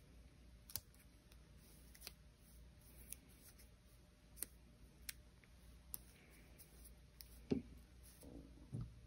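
Quiet handling of a bundle of thin square gold-fill wires being taped with painter's tape: faint, scattered clicks and light taps, with two soft thumps near the end.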